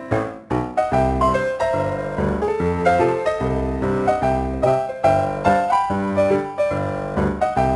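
Background music: a bouncy piano tune with a steady beat and a bass line, with a brief gap about half a second in.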